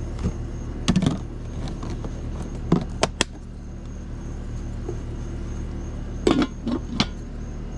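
Scattered clinks and knocks of dishes, pans and utensils being handled during cooking, in small clusters about a second in, around three seconds and near the end, over a steady low hum.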